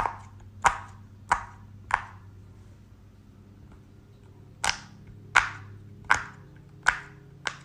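A series of sharp smacks, each with a short ring: four about two-thirds of a second apart, a pause of about two and a half seconds, then five more at the same pace.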